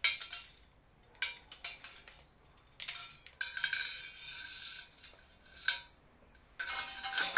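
Steel tape measure being pulled out and laid along an aluminium extrusion: a string of metallic clicks and rattles, with a longer scraping run of the blade a little past halfway.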